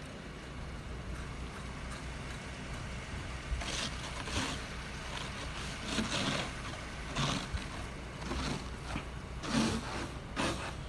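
A series of short scrapes, snow being scraped and brushed off a car, over a steady low rumble.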